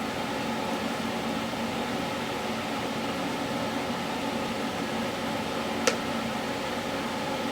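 Steady mechanical hum with a low steady tone, like a household appliance running, and one short sharp click about six seconds in.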